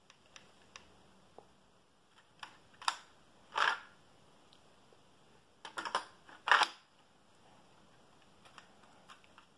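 Plastic clicks and clacks of a Lego-brick toy rifle being handled, in two quick clusters, each ending in a louder clack.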